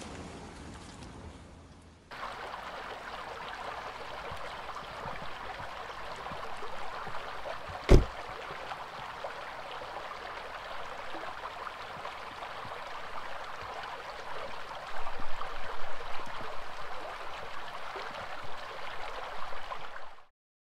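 A stream flowing over rocks, a steady rush of water that swells somewhat louder in the later part. A single sharp thump about eight seconds in.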